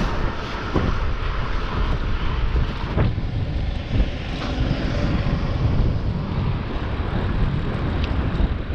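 Steady rushing wind and road noise on the microphone while riding a bicycle, with a few light clicks.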